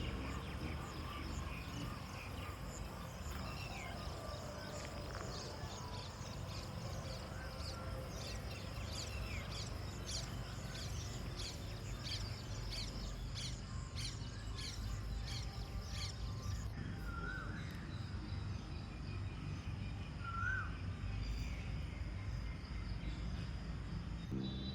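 Mixed birdsong and calls from several birds: scattered high chirps, a quick run of sharp chirps midway, and two short curling whistled notes a few seconds apart near the end. A steady low rumble runs underneath.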